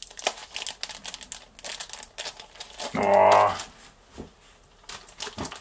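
Stiff plastic ham packaging being pried at and flexed, giving rapid clicks and crackles. A short hummed voice sound of effort about three seconds in, then a few scattered clicks.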